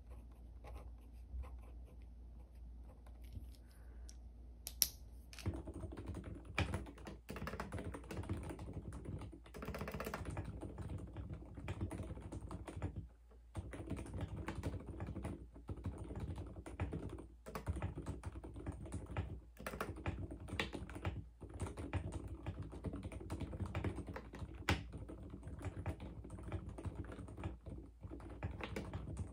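A pen scratching on a sticky-note pad, then, after a sharp click about five seconds in, fast typing on a mechanical keyboard: a steady clatter of keystrokes broken by short pauses.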